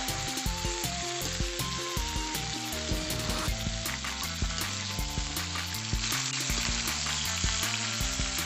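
Chicken feet sizzling in hot oil in a metal pan as they are sautéed with onion, garlic and ginger, stirred and turned with a metal ladle. A simple melody of background music plays underneath.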